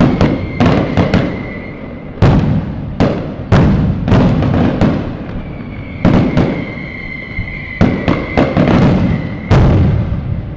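Fireworks going off: over a dozen sharp bangs, each trailing off in a crackle. A steady high whistle sounds under the bangs for the first two seconds and again for several seconds in the second half.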